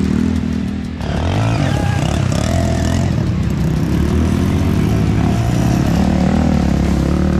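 Dirt bike engine running steadily. It eases off briefly about a second in, then pulls again.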